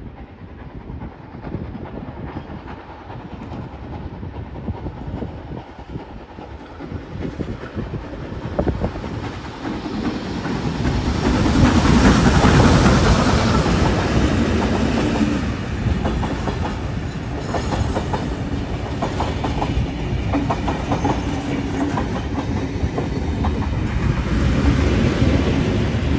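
Heritage train passing: steam locomotive 3526 of the NSWGR 35 class draws near and goes by loudest about twelve seconds in. A rake of heritage carriages follows, wheels clicking over the rail joints, and the diesel locomotive on the rear comes by near the end.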